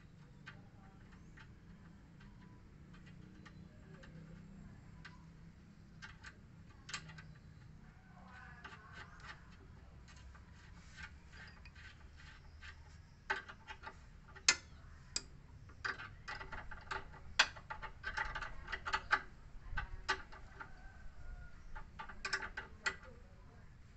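Irregular metallic clicks of a wrench on the nut of a Ford EcoSport's new front stabilizer link as it is tightened with a second lock nut. The clicks are sparse at first and come in quick runs in the second half.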